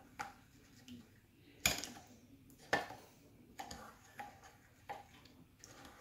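Metal spoon clinking against a ceramic bowl while stirring jaggery melted in hot water, several clinks at uneven intervals, the loudest a little under two seconds in.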